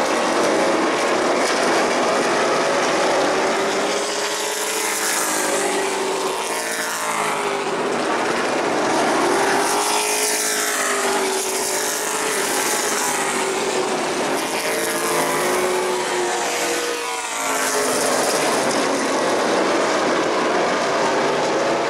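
A field of Pro Late Model stock cars racing on a short oval, their V8 engines running hard together. The sound swells and the pitch sweeps downward as cars go by, several times.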